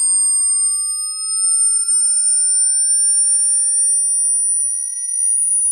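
A pure test tone played through the Xiaomi Mi TV Soundbar, sweeping slowly upward in pitch from about 1 kHz toward 2 kHz. It is part of a treble-extension frequency sweep heading for 20,000 Hz, with fainter high-pitched side tones gliding alongside it.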